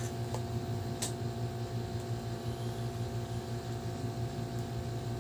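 Steady low room hum with faint handling noises and one sharp click about a second in, as fingers pick at a strip of tape on a cardboard gift box.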